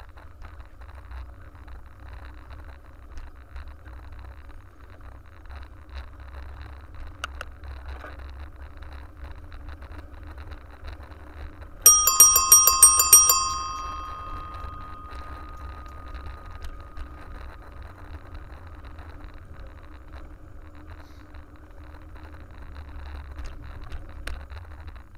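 A bicycle bell rung in a rapid trill for about a second and a half, about halfway through, its tone ringing on and fading over the next few seconds.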